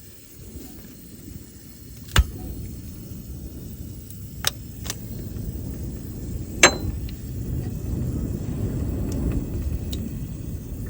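A few sharp metallic clinks of hand tools or parts against metal, one with a short ring, during repair work on a skid steer's cooling system, over a low steady rumble.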